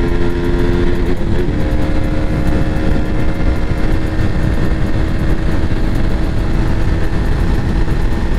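KTM Duke 200's single-cylinder engine running flat out near top speed, a steady drone climbing slowly with the speed, under heavy wind rush on the microphone. The engine note shifts once about a second in, then holds.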